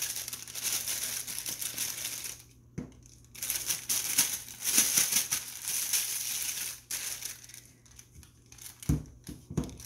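A clear plastic bag crinkling as it is handled and filled with frosting, in two long spells, then a couple of short knocks near the end.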